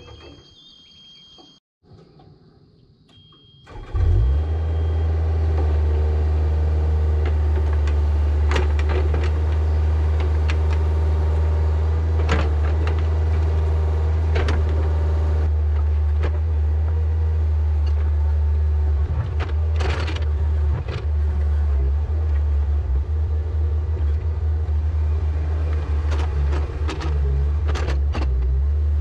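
Yanmar ViO50 mini excavator's diesel engine running steadily under digging load, a low rumble that comes in sharply about four seconds in after a quiet start, with scattered short clunks from the digging.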